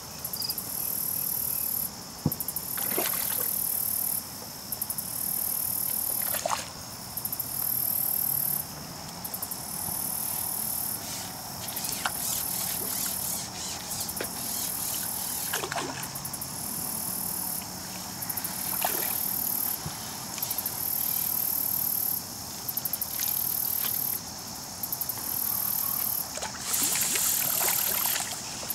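Insects chirping in steady high-pitched pulses about a second long over a constant high whine, with a few small splashes. Near the end a hooked carp thrashes and splashes at the surface.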